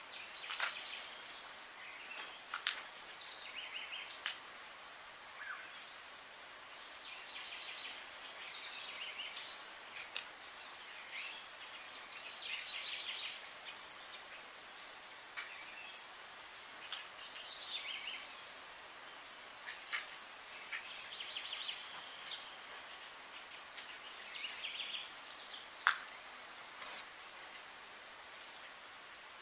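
Tropical forest ambience: insects droning steadily at a high pitch, with many short bird chirps and calls scattered over it and one sharper call near the end.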